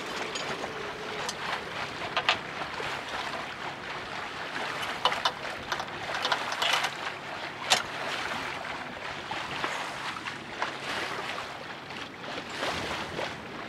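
Metal anchor chain clinking and knocking in short irregular strikes as it is handled and stowed in a sailing yacht's bow anchor locker, over a steady hiss of water and wind.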